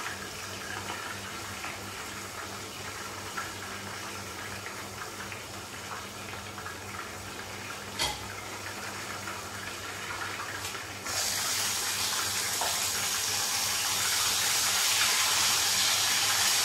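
Chicken pieces deep-sizzling in hot oil in a covered frying pan, a steady muffled hiss with a single click about eight seconds in. About eleven seconds in the sizzle jumps suddenly louder and brighter as the lid comes off the pan.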